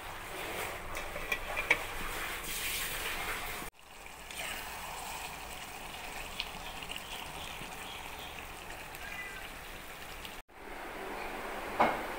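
Chicken curry simmering in a metal pot, a steady bubbling hiss with a few small clicks, broken twice by brief dropouts.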